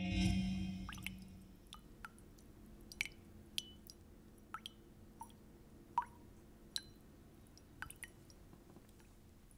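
Water dripping from a faucet: about a dozen irregularly spaced drops, each a short pitched plink, the loudest about six seconds in. A sustained ringing tone fades out over the first second and a half.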